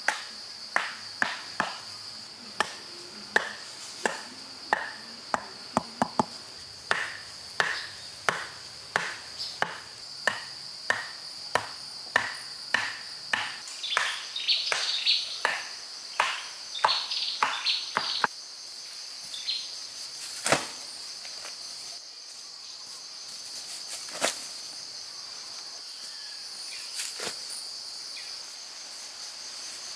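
A run of sharp striking blows, nearly two a second, that stops about halfway through, followed by a few scattered strikes, over a steady high-pitched buzz of insects.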